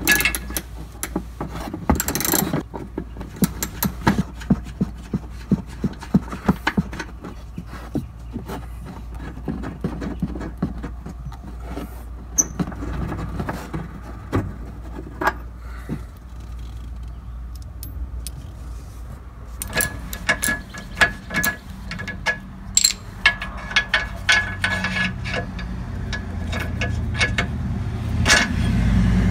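Socket ratchet wrench clicking in quick runs, with metal clinks of socket and bolt, as the rear shock absorber's mounting bolts are loosened. A low rumble builds near the end.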